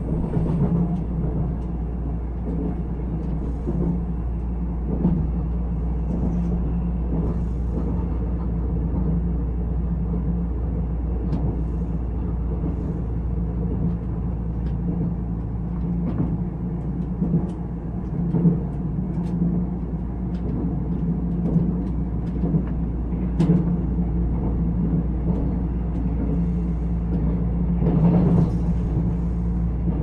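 Cabin noise inside a Nuriro electric multiple-unit passenger train on the move: a steady low rumble of wheels on rail, with scattered sharp clicks and knocks.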